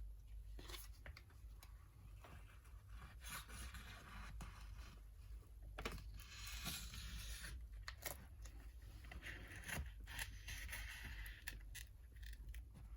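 Faint scraping with small clicks: a pry tool working under the edge of an iPad 7th-gen LCD, digging through the wax glue that holds it down.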